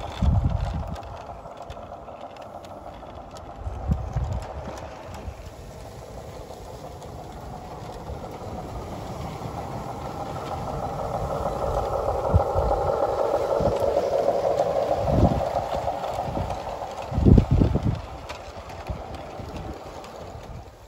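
Garden-railway model locomotive running along the track: a steady mid-pitched hum of motor and wheels that swells as it comes near, is loudest past the middle, then fades. A few low thumps are heard as well.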